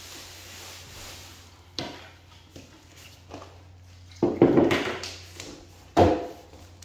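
Knocks and thumps on a wooden plank floor as a kneeling person shifts on his knees and moves a plastic bucket about, a few single knocks and then a louder cluster about four seconds in, and a sharp knock about a second later.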